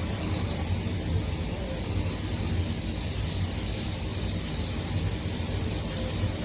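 Strong wind blowing steadily, a low rumble with a hiss over it.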